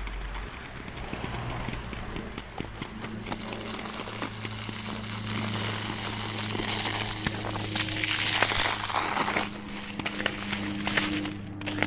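Crackling, crunching noise of freezing rain ticking on an icy snow crust, with footsteps crunching through it; it grows louder for about two seconds a little past the middle. A low steady hum runs underneath.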